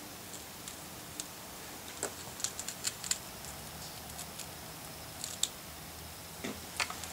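Faint handling noise: scattered light clicks and taps as hands press a stick-on pressure-switch pad and its coiled cord onto a wooden rifle stock, a small cluster of them a couple of seconds in and a few more near the end.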